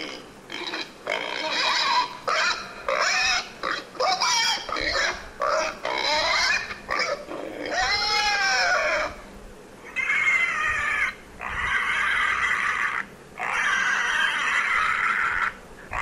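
A pig calling: a quick run of short calls that rise and fall in pitch, then three longer, steadier calls of a second or two each in the second half.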